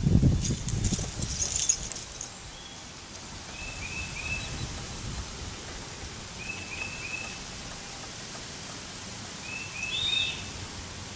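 A gust of wind buffets the microphone while the nylon parachute canopy crackles and rustles for the first two seconds or so. After that the wind eases to a steady low hiss, and a bird chirps in quick runs of three short notes, three times, the last run a little louder.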